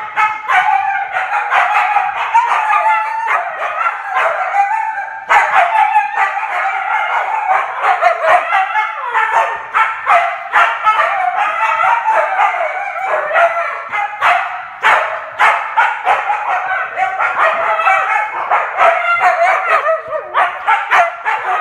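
Two huskies howling and yowling back and forth at each other while playing: a nearly unbroken run of loud, wavering calls that sounds like arguing.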